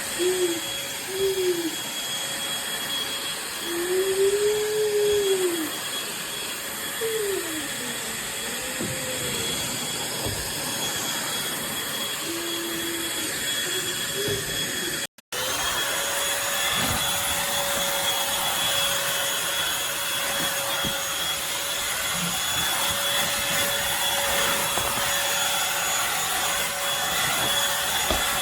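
Eureka corded stick vacuum running with a steady whine. In the first half a lower tone wavers up and down several times, and the sound cuts out for an instant about halfway.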